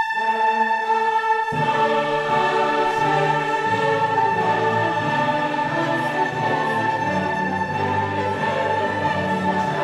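Background music: a slow orchestral piece with a choir holding long notes, the lower parts coming in about a second and a half in.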